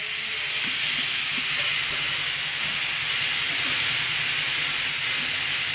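Home-made fluid extractor running steadily, a loud hiss with a continuous high whistle, as it sucks power-steering fluid out of the reservoir through a thin hose.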